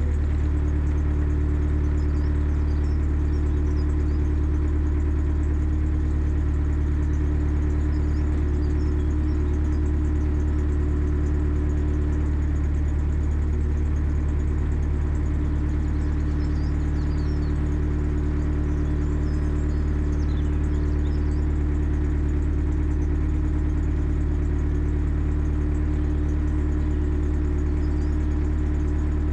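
Narrowboat's inboard engine running steadily at slow cruising speed, a low even hum that holds without change.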